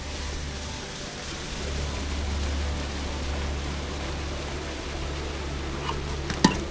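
Liquid nitrogen pouring into a steel pot around a watermelon and boiling off, a steady rushing hiss. A single sharp knock near the end.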